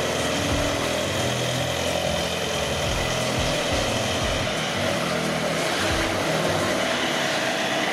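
Diesel engine of a Linde H35 D forklift running steadily as the truck drives and turns.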